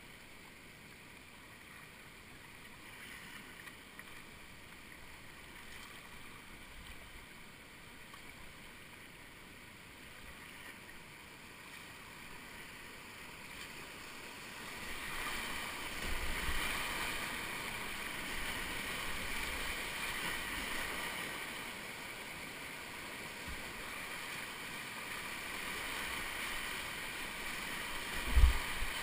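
Mountain-river water heard from a kayak: a soft, steady rush of flowing water that swells into the louder, continuous rush of a whitewater rapid about halfway through as the boat runs down into it. A single sharp thump sounds near the end.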